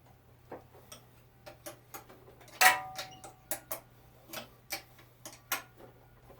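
Irregular metallic clicks and taps from hand tools working on a small engine while its starter is fitted, with one loud ringing metal clank nearly three seconds in.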